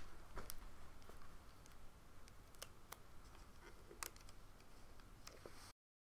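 Faint, scattered clicks and small snaps of a rubber loom band being twisted and stretched onto the plastic pins of a Rainbow Loom, over a low hum. The sound cuts off abruptly to silence near the end.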